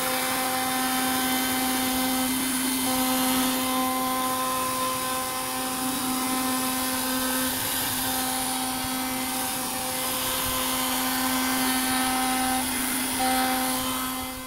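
CNC router spindle running steadily with its bit cutting into a wooden frame: a constant whine with overtones over a hiss of cutting. This is a finishing pass rerun at a corrected depth.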